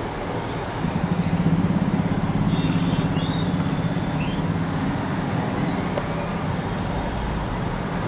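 Steady road-traffic noise with a motor vehicle's engine running close by, swelling about a second in and easing off after a few seconds.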